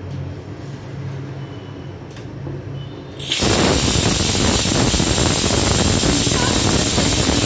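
Water streaming and splashing back into a pot as a wire strainer full of blanched spinach is lifted out to drain, a loud steady rushing splash that starts suddenly about three seconds in.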